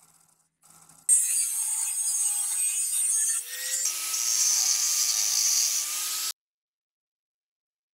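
A power tool cutting into metal for about five seconds, starting abruptly and cutting off sharply. Its character changes about halfway through, when a steady motor tone settles in.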